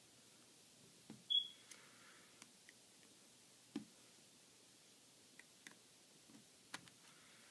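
Faint clicks and taps of a plastic spudger and suction cup prying an iPhone 3GS screen up from its frame, with one short, sharp high squeak about a second and a half in.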